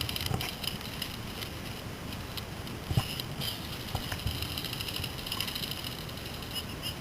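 Airsoft guns firing at a distance, rapid runs of small clicks, over a steady background rustle, with one sharp knock about three seconds in.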